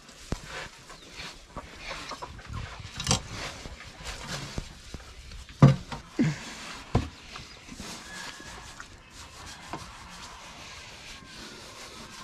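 Shovel scooping and tossing sawdust bedding into a pig pen, a steady dry rustling and scraping, with a pig grunting three times, short and falling in pitch, near the middle.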